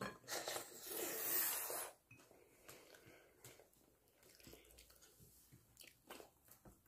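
Close-up eating sounds of someone chewing a mouthful of rice and chicken adobo. A loud, rough noise lasts nearly two seconds at the start, then only faint chewing and lip clicks follow.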